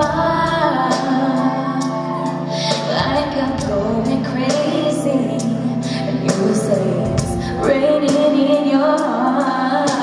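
A woman singing a slow pop ballad live into a microphone, backed by a live band with held keyboard chords, a bass line that shifts every few seconds, and regular percussive hits.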